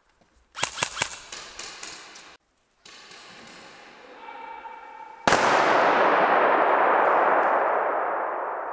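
A quick burst of about half a dozen sharp airsoft gun shots, echoing off the surroundings. After a brief break, a loud noise starts suddenly and slowly fades away over several seconds.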